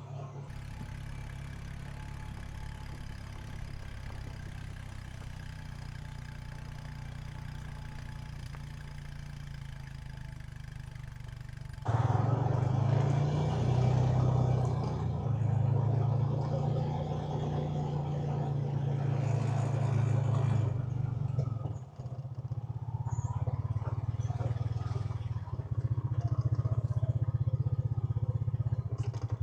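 Honda Pioneer 520 side-by-side's engine running as it drives, a steady drone that suddenly gets much louder about twelve seconds in, with a brief dip about ten seconds later.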